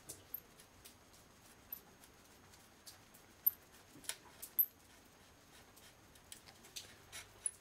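Pen-style aluminium push hand drill boring a micro bit into thin crate plywood: faint, irregular small clicks and tiny high squeaks from the bit cutting and the push mechanism, with two sharper clicks about four seconds in.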